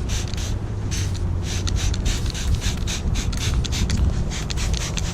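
Hand trigger spray bottle squirting soapy water, many quick hissing squirts in a row, wetting the adhesive side of a paint-protection film before it is applied.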